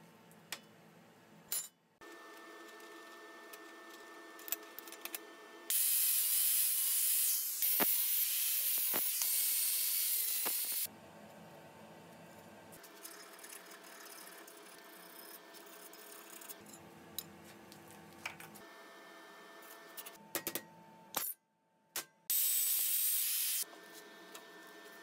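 Small steel parts clicking and clinking as they are handled on a steel welding table, over a steady shop hum. There are two loud bursts of hissing noise with a wavering high whine: one of about five seconds and, near the end, a shorter one.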